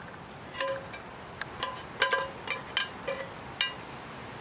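Metal kitchen tongs clinking against metal cookware while food is scooped from a frying pan onto a tray: a string of short, sharp clinks, each with a brief ring, about eight in four seconds.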